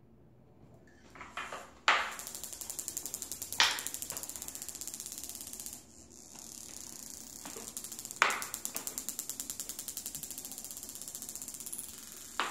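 A marble knocked about on a tiled floor: four sharp knocks, each followed by a fast, even rattle of clicks as it rolls across the tiles.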